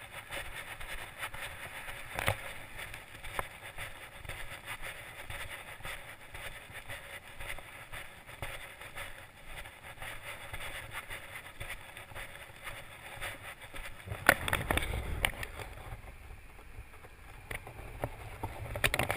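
Footsteps and gear handling from a person walking with a body-worn camera, with irregular clicks and knocks over a steady background noise. A louder low rumble comes in about two-thirds through, and there are sharp clicks near the end.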